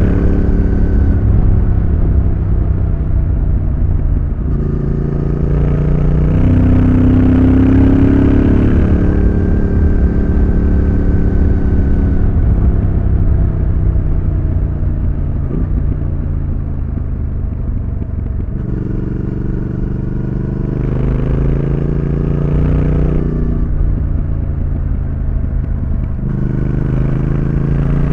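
Triumph Thruxton RS's 1200 cc parallel-twin engine and exhaust under way, repeatedly pulling and easing off. The note climbs from about five seconds in, drops back around twelve seconds, climbs again from about nineteen seconds, falls near twenty-four, and picks up again near the end.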